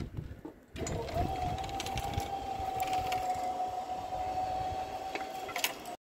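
Level-crossing barrier drive motor whining as the boom lifts: a steady whine that rises in pitch as the motor spins up about a second in, then holds level, over a low rumble. It cuts off abruptly near the end.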